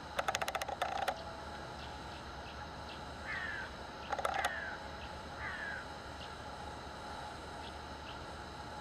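A bird calling three times, each a short falling call, spaced about a second apart, with a quick run of sharp clicks near the start and a shorter one about four seconds in.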